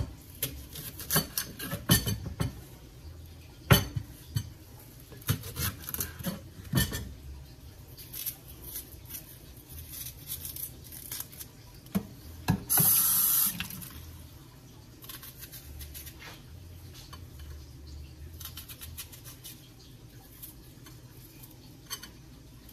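Kitchen knife clicking and knocking on a wooden cutting board as an onion is cut, busiest in the first several seconds. About halfway through, a tap runs for about a second, then light, scattered knife sounds follow as the onion is sliced in the hand over a bowl.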